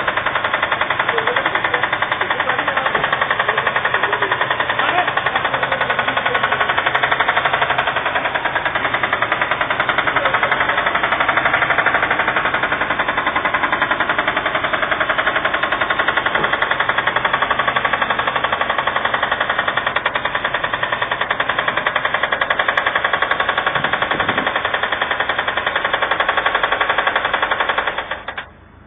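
Subaru Impreza's EJ20 flat-four boxer engine running with a loud, rapid, steady knocking from inside the engine, a fault bad enough that the engine needs replacing. It cuts off suddenly near the end as the engine is switched off.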